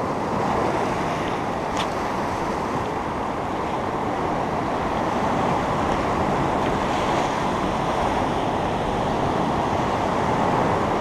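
Steady rush of ocean surf breaking and washing up the beach, with wind buffeting the microphone; a faint click about two seconds in.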